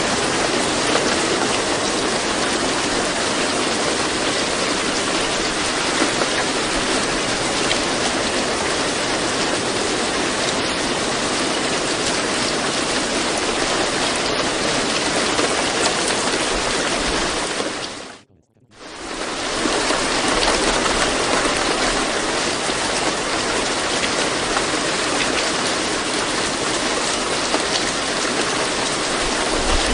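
Steady rain ambience, an even hiss of falling rain. A little past the middle it fades to near silence for about a second, then comes back at the same level.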